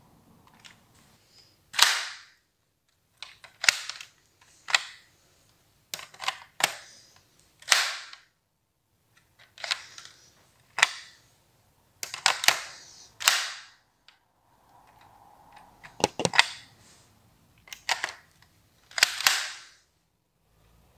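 Sharp plastic clacks and rattles of a LEGO-brick HK MP5 replica being reloaded by hand, its magazine and charging handle worked and the handle slapped down. The clacks come in a series, singly or in quick pairs, about one every second.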